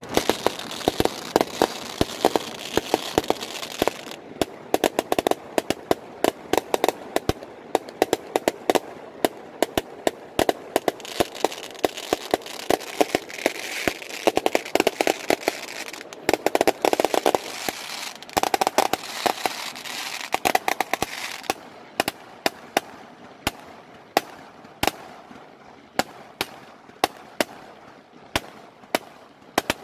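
Aerial fireworks going off: a rapid, dense barrage of sharp bangs over a steady crackle, thinning to scattered single bangs over the last several seconds.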